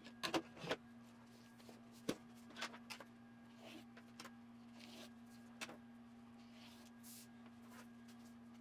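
Scissors snipping through thin water-soluble stabilizer film, with the clear plastic sheets crinkling as they are handled: a scatter of faint clicks and rustles over a steady low hum.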